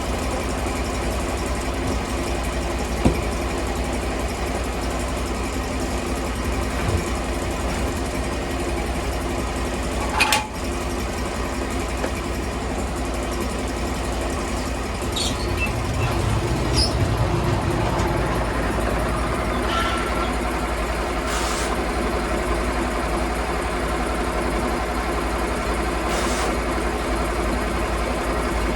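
Sawmill engine running steadily, with a sharp knock about ten seconds in and a few lighter clanks.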